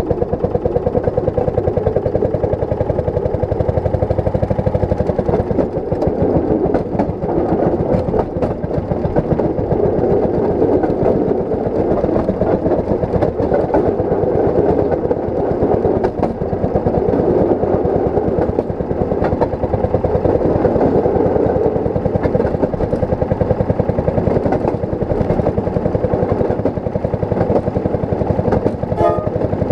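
Rail speeder's engine running steadily as the motorcar travels along the track, with a few clicks from its steel wheels crossing rail joints.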